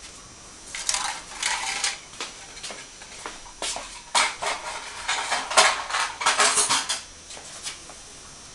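Loose metal parts and tools clinking and clattering as they are handled, in several bouts from about one second in until about seven seconds in, with sharp knocks between them.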